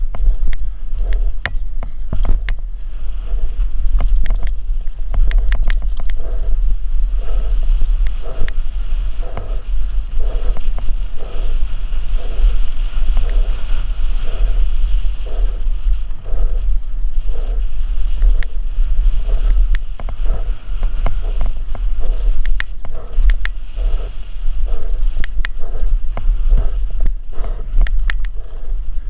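Downhill mountain bike riding fast over a dirt trail: heavy wind buffeting and rumble on the rider's camera, with tyres on dirt and frequent sharp clicks and rattles from the bike over bumps. Through the middle an even pulse comes about every two-thirds of a second.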